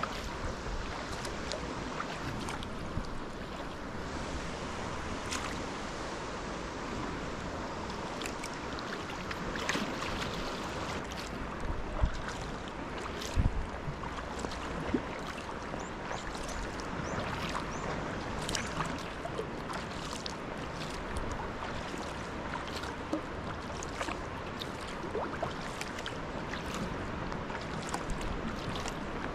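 Sea kayak moving through calm water: the paddle blade dipping and splashing with each stroke, and water trickling and lapping along the hull, with a couple of louder knocks near the middle.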